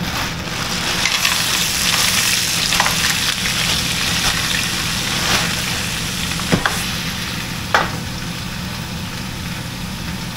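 Mixed vegetables sizzling hard in a hot frying pan just after being poured in, the hiss strongest in the first seconds and easing later. A few sharp clicks come through over it.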